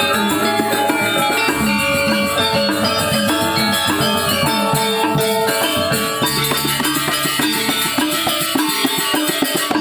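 Balinese gamelan gong ensemble playing an instrumental tabuh: many ringing metallophone tones layered in quick patterns over steady drum strokes.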